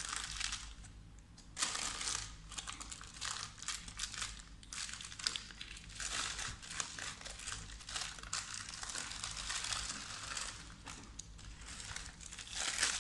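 Thin paper crinkling and rustling in uneven spurts as a Swiss roll sponge is rolled up in it by hand and the ends are twisted. A quieter moment comes about a second in before the rustling picks up.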